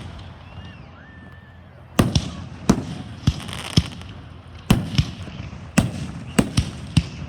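Fireworks going off: after a quieter first two seconds, a run of about ten sharp bangs at uneven intervals, some followed by crackling.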